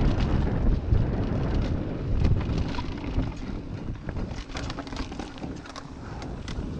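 Wind rumbling on the microphone of a camera mounted on a mountain bike rolling down a leaf-covered dirt trail, with tyre noise and many short clicks and rattles from the bike over rough ground. The rumble eases somewhat in the second half.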